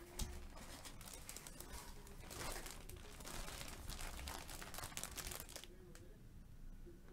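Clear plastic bag crinkling with a faint, irregular crackle as the autographed football jersey sealed inside it is lifted out of its box and handled, with a light knock just after the start.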